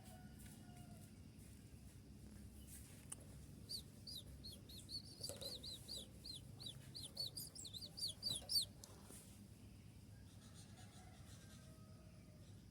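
Konin (kolibri ninja) sunbird singing its 'tembakan' song: a rapid run of sharp, high, down-slurred notes, about four a second for some five seconds, getting louder toward the end.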